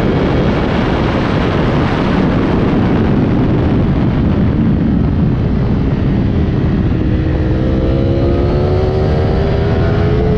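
Heavy wind rush over an onboard camera on a sport motorcycle at track speed, with the engine of the 2022 Ducati Streetfighter V4 SP underneath. From about seven seconds in the engine note climbs steadily as the bike accelerates.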